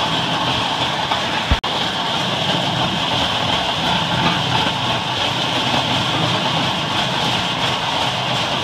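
Pedal-powered rail bike rolling along railroad track, its steel wheels giving a steady rolling noise on the rails. There is a brief dropout about a second and a half in.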